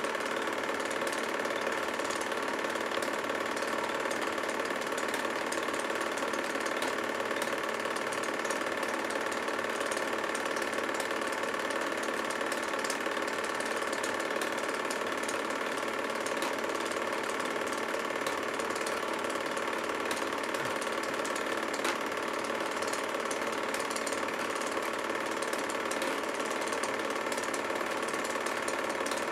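Home-movie film projector running steadily: a constant mechanical whir with fine, rapid ticking from the film-advance mechanism. It was picked up while the silent film was being transferred.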